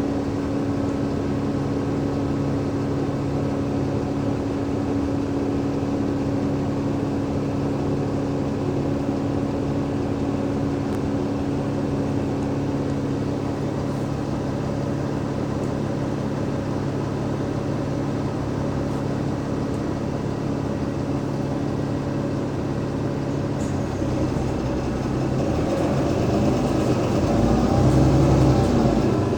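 Cummins ISL 8.9-litre diesel engine of an Alexander Dennis Enviro500 MMC bus, heard on board, running at a steady even note for most of the time. About 24 seconds in, the note changes and grows louder for the last few seconds, as the engine takes on load.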